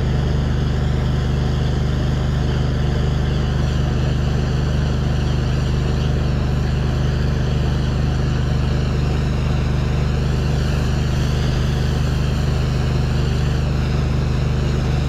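Pressure-washing rig's engine running steadily at a constant speed: an even, unchanging drone.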